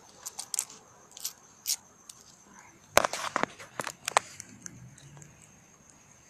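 Crickets trilling steadily on a high note, with scattered sharp clicks and a burst of crunching and crackling about three seconds in.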